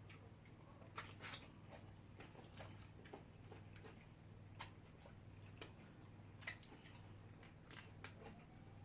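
Faint eating sounds: chewing with scattered sharp clicks, over a low steady hum.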